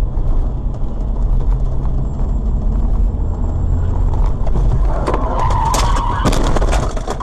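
Dashcam audio inside a moving car: steady low road and engine rumble. About five seconds in comes a brief tyre squeal, with a few sharp knocks just after it.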